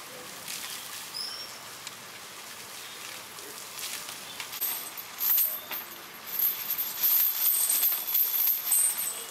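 Water from a garden hose spraying and splattering onto an elephant's hide and the wet ground, a steady hiss. In the second half a louder, shrill high-pitched sound comes and goes over it.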